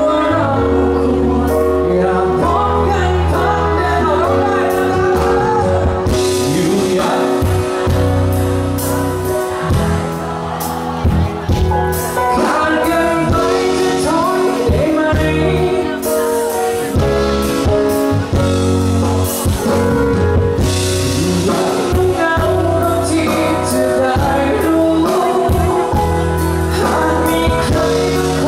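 Live pop-rock band playing a song, with a male singer's voice over guitar, bass and drums.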